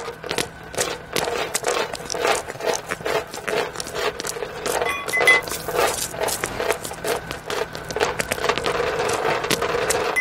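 Iron chain and shackles rattling and clinking, a dense run of quick metallic clinks.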